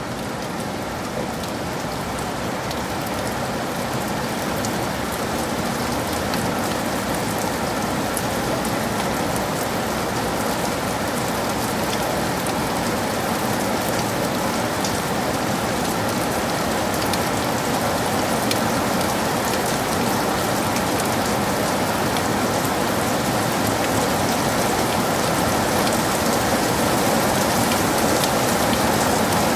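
Heavy rain falling steadily, an even hiss of countless drops that grows gradually louder.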